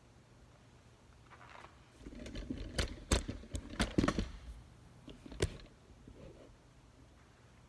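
A cluster of sharp clicks and knocks mixed with rustling, about two to four and a half seconds in, then one more sharp knock a second later.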